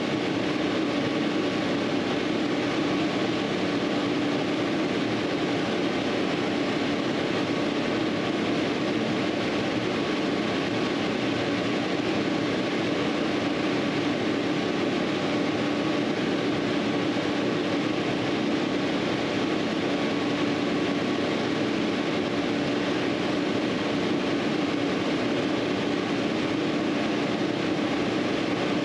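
Steady mechanical running noise: a constant drone with a low hum that does not change.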